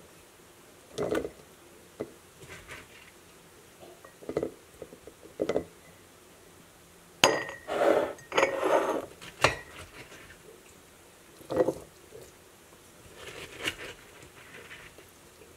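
Glass mason jars clinking and knocking on a granite countertop while sauerkraut is packed into them through a plastic canning funnel. The knocks are scattered, with a busier run of clinks about halfway through.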